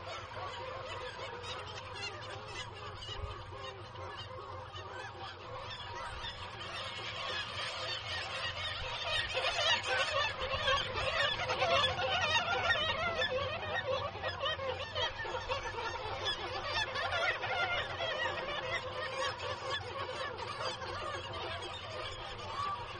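Nesting colony of black-legged kittiwakes, many birds calling at once in a dense chorus of overlapping cries that swells to its loudest about ten seconds in and then eases off.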